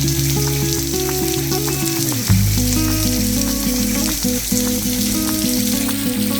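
Background music of slow, held low chords, shifting to a new chord a little over two seconds in, over a steady crackling hiss.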